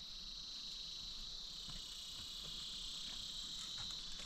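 Insects calling in a steady, high-pitched chorus.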